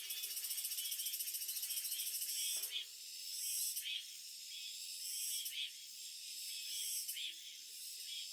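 High-pitched animal trills: a fast, evenly pulsed buzz for the first two and a half seconds, then shorter buzzy calls repeated about every second.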